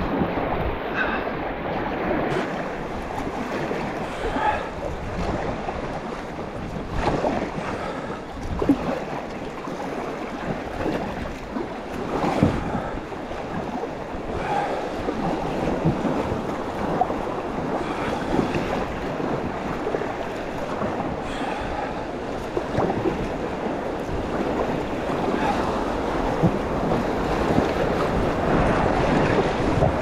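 Rushing whitewater of river rapids: a steady wash of water noise with irregular splashes.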